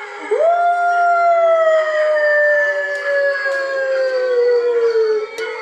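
A recorded wolf howl played back: one long call that starts about a third of a second in, holds for about five seconds while slowly falling in pitch, with a lower howl sounding beneath it. A short click near the end.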